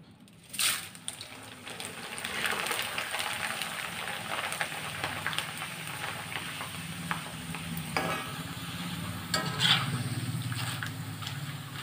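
Corn flakes deep-frying in hot oil in a kadai: a sudden burst of sizzling near the start as the batch goes in, then a steady sizzle. A metal spoon stirring the flakes clicks and scrapes against the pan now and then.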